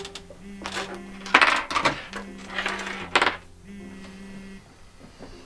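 Objects being handled and knocked on a desk: several short clattering knocks, the loudest about a second and a half in and again around three seconds. Under them a soft held tone comes and goes about every second and a half.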